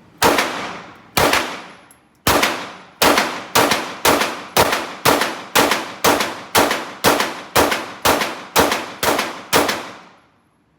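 Gunshots at a shooting range: two shots about a second apart, a pause, then a steady string of about fifteen shots at roughly two a second, each followed by a brief echo.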